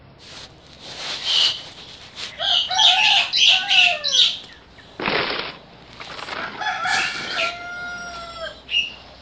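Roosters crowing: one crow about two and a half seconds in, and another around seven seconds that ends in a long held, slightly falling note. A short burst of noise comes between them, with a few brief high chirps.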